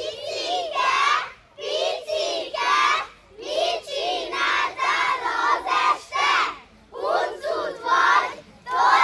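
A group of children's voices chanting in unison without accompaniment, in short phrases about a second long with brief pauses between them.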